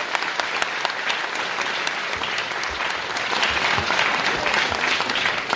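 A large indoor audience applauding, many hands clapping at once and growing a little louder about halfway through.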